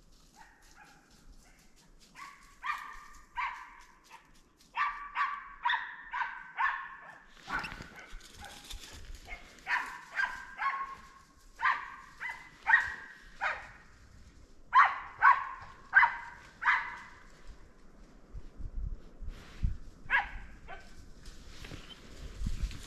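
Dog barking in bouts of several quick barks, with pauses between the bouts, and a few low thuds near the end.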